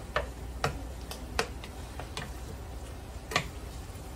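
Wooden spoon knocking against a ceramic pot while stirring and breaking up chorizo frying with onion and tomato: a string of irregular light knocks, the loudest a little past three seconds in.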